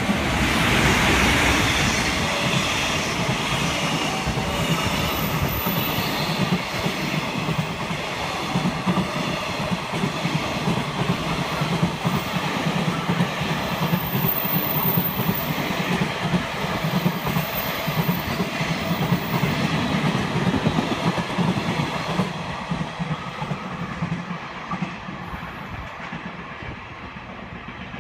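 JR Freight EF200 electric locomotive hauling a long train of container flat wagons passing through at speed: a continuous rumble of steel wheels on the rails, loudest as the locomotive goes by about a second in, then fading over the last several seconds as the train draws away.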